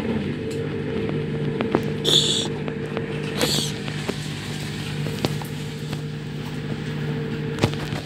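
LG front-loading washing machine running with its drum turning, giving a steady two-tone motor hum. Scattered clicks and knocks sound through it, with two short hisses about two and three and a half seconds in.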